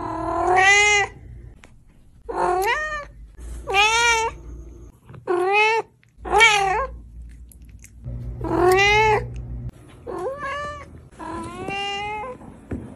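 A domestic cat meowing over and over: about eight drawn-out meows with short gaps between them, each rising and then falling in pitch.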